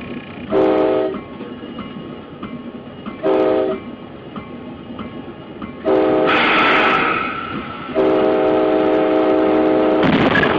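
Locomotive air horn sounding a chord in warning blasts: two short blasts, a longer one about six seconds in mixed with a hissing noise, then a long held blast from about eight seconds in. Under it runs the steady rumble of the moving train.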